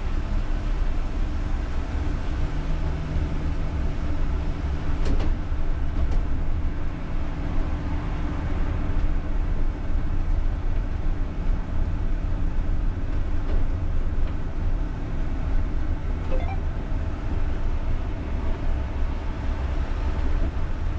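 UTTZ-6241.01 (MAZ-203T) trolleybus under way, heard from the driver's cab: a steady low rumble of tyres and running gear with the hum of the electric drive, stronger from about two to eight seconds in. A couple of faint clicks about five and six seconds in.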